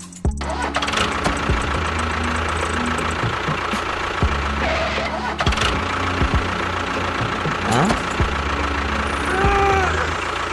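Small engine running steadily, cutting in abruptly just after the start, with a few short chirping tones near the end.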